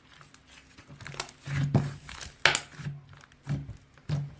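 Toy slime being squished and pressed by hand, giving irregular crackling clicks and pops, with one louder pop about two and a half seconds in.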